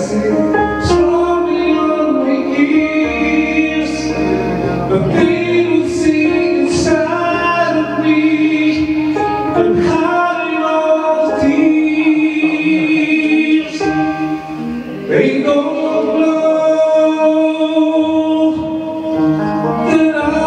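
A song with singing: voices on long, held notes throughout.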